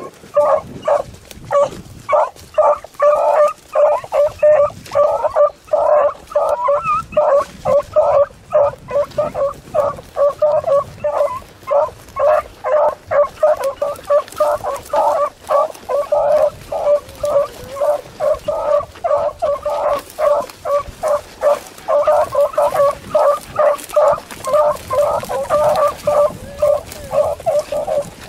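Beagle hounds baying in a fast unbroken run of short barks, about two or three a second: hounds giving tongue as they run a rabbit's scent line.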